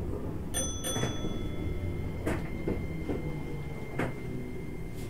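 Inside a Keikyu New 1000 series train: several sharp metallic clicks and knocks, two close together about half a second in with a brief ring, over the train's steady low hum and a faint high whine.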